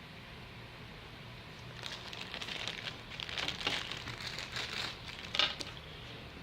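Plastic packaging crinkling and rustling as a new cellphone is unboxed, starting about two seconds in, with one sharper crackle near the end.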